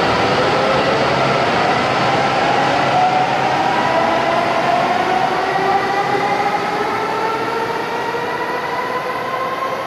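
N700S Shinkansen train accelerating, its motor whine made of several tones rising steadily in pitch over rolling and air noise, growing slowly quieter near the end.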